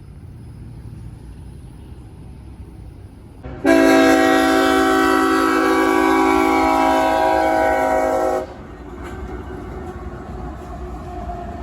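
Diesel locomotive air horn sounding one long, steady chord of about five seconds, starting and cutting off abruptly a few seconds in: a horn salute from a CSX freight train. Before and after it, the rumble of the passing double-stack train rolling on the rails.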